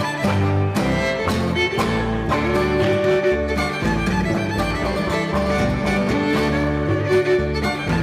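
Live contra dance string band playing a fiddle-led reel-style tune with a steady beat.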